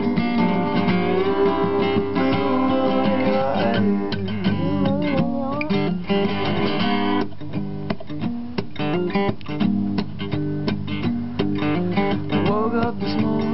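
Acoustic guitar strummed and picked in a live recording of a song. About seven seconds in, the higher, wavering notes drop away, leaving choppy strumming.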